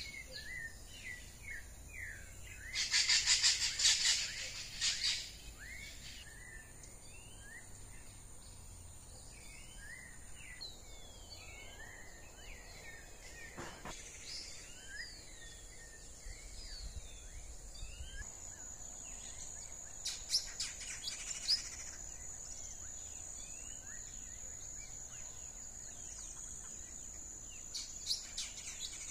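Many small birds chirping and calling in a morning chorus, with a loud harsh rattling burst about three to five seconds in and shorter rattling bursts later. A steady high-pitched whine sets in about two-thirds of the way through.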